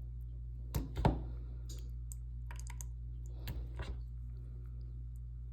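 Handling noise: a few short, irregular clicks and taps, the two loudest about a second in, over a steady low electrical hum.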